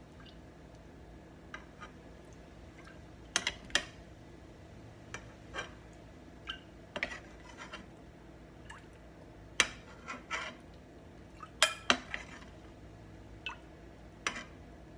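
Metal ladle clinking against the rim of a pressure-cooker pot and a basin as fat is skimmed off beef broth, with a little liquid being ladled. The clinks come at irregular intervals, the sharpest a few seconds in and again around ten and twelve seconds in.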